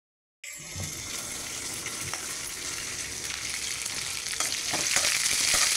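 Sliced onions, green chillies, curry leaves and chana dal sizzling in hot oil in a metal pan, being tempered for semiya. It is a steady sizzle that starts after half a second of silence and grows slightly louder, with a few light clicks.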